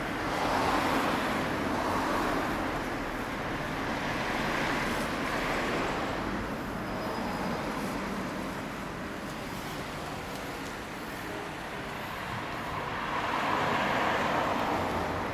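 Road traffic: vehicles passing on the street in swells, the loudest passes near the start, in the middle and near the end.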